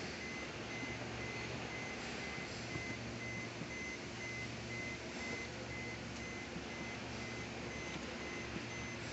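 A high electronic beep repeating at an even, rapid pace over a steady hiss.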